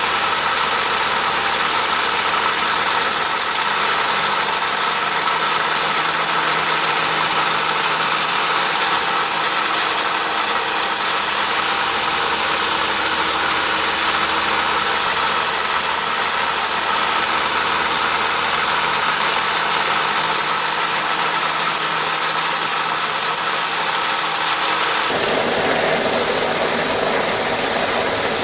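Electric woodworking power tool running steadily while a small wooden pattern piece is rounded over and smoothed against it; the sound changes, getting fuller and lower, about three seconds before the end.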